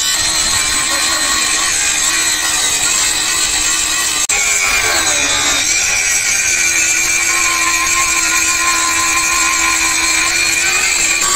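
Electric angle grinder with an abrasive disc grinding a steel truck chassis rail, a steady high whine over the scraping of the disc on steel. It breaks off for an instant a little over four seconds in, then its pitch sags and recovers as the disc bites into the steel.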